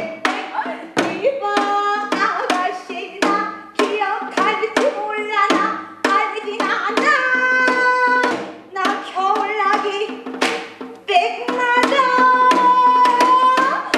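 Pansori singing: a woman's voice in the traditional style, with bending, sliding pitches, over a brisk beat of sharp drum strokes. A long held note comes near the end.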